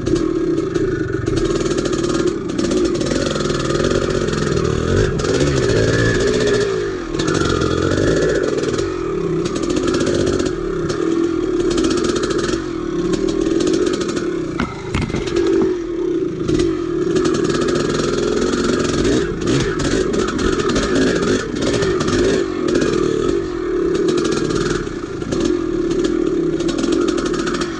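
1983 Maico 490's two-stroke single-cylinder engine running under load while riding, its revs rising and falling with the throttle. Scattered knocks and rattles come from the bike over rough ground.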